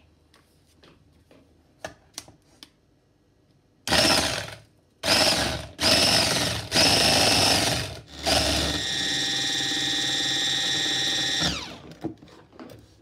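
Electric hand mixer whisking eggs and sugar in a bowl: a few light clicks, then the motor and beaters run in several short bursts before a steady run of about three seconds, winding down with a falling pitch near the end.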